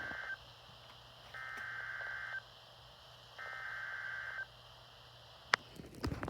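Emergency Alert System SAME header: digital data tones sent in bursts about a second long with about a second's gap, the end of one burst and then two more, marking the start of a coded weather warning. A sharp click comes about five and a half seconds in.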